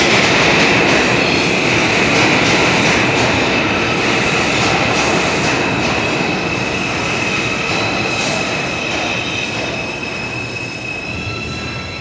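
Subway train running through the station with its wheels squealing in one steady high tone over the rumble, and clacking from the wheels. The noise eases off near the end.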